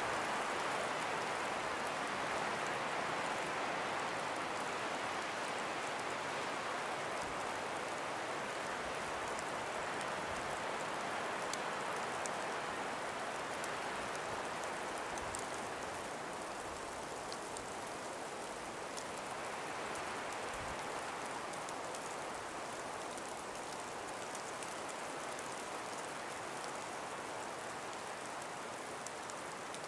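Calm winter breeze through an ice- and snow-laden forest: a steady, soft hiss that eases slightly past the middle, with faint scattered ticks over it.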